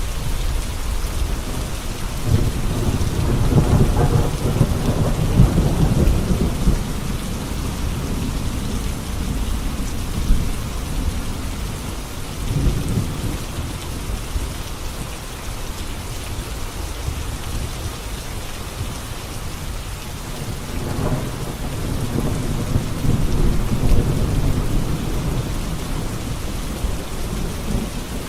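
Heavy rain falling on a road, a steady hiss, with low rolling thunder that swells twice, a few seconds in and again past the twenty-second mark.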